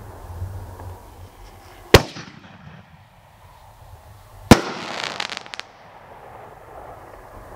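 Excalibur consumer artillery shells bursting in the air: two loud bangs about two and a half seconds apart, the second followed by a quick run of crackles.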